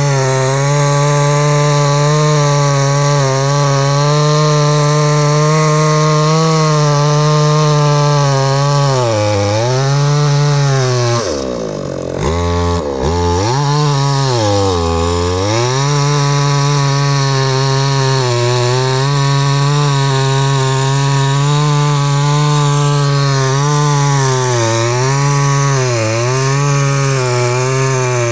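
Two-stroke chainsaw running at high revs, its engine note sagging briefly several times. About eleven seconds in, the revs fall away sharply toward idle, then climb back to full speed within a few seconds.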